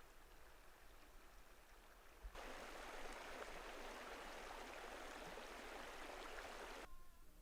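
A steady rushing hiss, like running water or wind, that starts abruptly about two seconds in and cuts off suddenly near the end.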